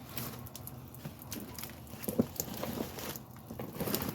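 Items being rummaged through and moved by hand: scattered rustles, light knocks and clatters, with one sharper knock about two seconds in.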